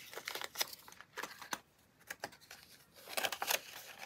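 Paper banknotes and a clear plastic binder envelope rustling and crinkling as cash is slid into the pocket and the binder page is turned: several short rustles, a lull about halfway, then more rustling.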